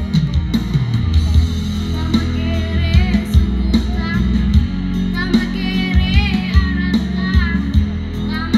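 A child singing a melody into a microphone through a PA system, over band accompaniment with heavy bass and a steady drum beat.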